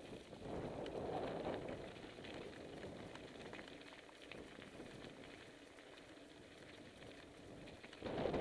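Bicycle tyres rolling and crunching over a loose gravel track on a descent, with small rattles and clicks from the bike. The noise gets louder about a second in and again near the end.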